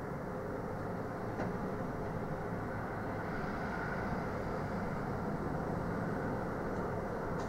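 Steady low machinery rumble with a faint hum, carrying across from a supermarket's service area at night, with one faint click about one and a half seconds in.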